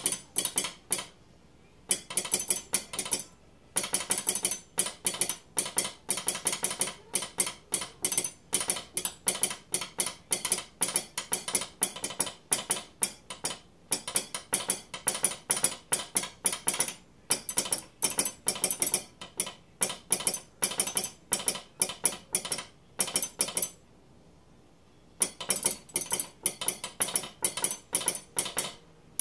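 A spoon and knife worked as an improvised telegraph key, clicking out railway Morse code in quick runs of sharp metallic clicks. Short breaks fall between the runs, and there is a longer break about 24 seconds in.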